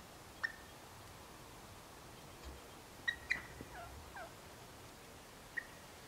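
Wild turkeys calling: a few short, sharp calls, with a quick cluster about three seconds in that includes two falling notes, and a single call near the end.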